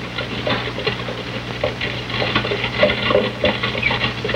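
Horses' hoofbeats galloping, a quick irregular clatter growing louder as they approach.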